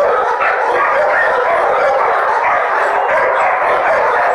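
Many dogs barking at once in shelter kennels, a steady, dense din with no breaks.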